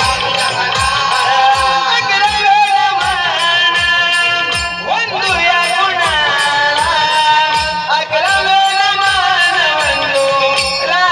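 Marathi naman folk song sung live by male voices, a melodic line with sliding ornaments, over a steady drum beat and small hand cymbals keeping time.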